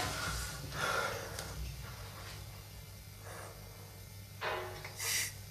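A man breathing heavily, with a few short, sharp breaths and sniffs about a second apart, over a low steady hum.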